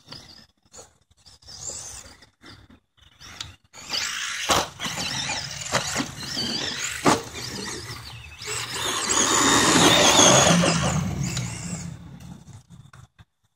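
Electric motor of a Tamiya Blackfoot Xtreme RC truck whining, rising and falling in pitch. It comes in short throttle bursts at first, then runs steadily, loudest about ten seconds in before fading. Two sharp knocks come along the way.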